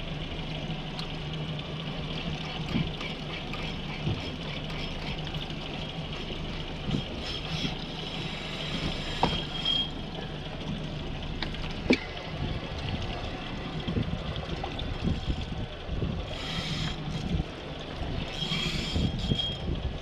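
Sea water lapping and splashing against a small motorboat's hull, with a low steady hum for the first few seconds and gusts of wind on the microphone later.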